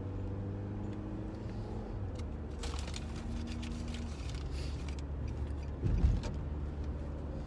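Car interior noise while driving on a rough road: a steady engine and road hum with scattered rattles and clicks, and one heavier bump about six seconds in.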